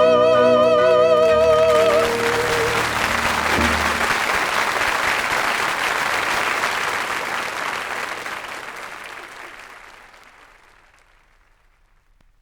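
A singer holds the last note of a song with wide vibrato over a piano chord, which breaks off about two seconds in. An audience then applauds, and the clapping fades away to near silence by about eleven seconds.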